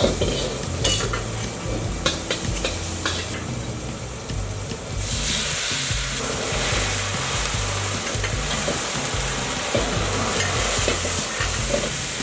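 Sauce of minced ginger and oyster sauce sizzling in a hot pan while it is stirred, with a few clicks of the utensil against the pan early on. The sizzling grows louder about five seconds in.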